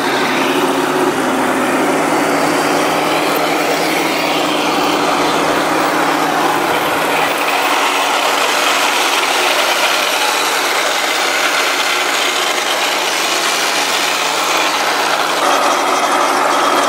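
Radio-controlled model tanks driving over sand and dirt: a steady mechanical whirring and rattling of their drive gearboxes and tracks.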